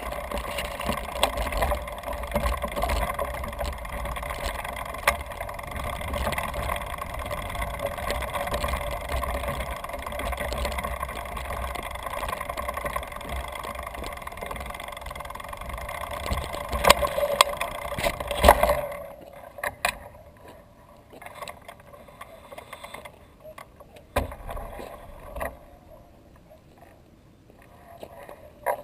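Downhill mountain bike rolling fast down a dirt trail: a steady noisy rush of tyres on dirt, bike rattle and wind on the microphone, with a few sharp knocks near the end of the ride. About two-thirds of the way through the bike comes to a stop, leaving only scattered clicks and rustles.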